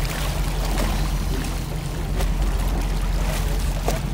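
Fishing boat's engine running steadily, with water rushing and splashing past the hull.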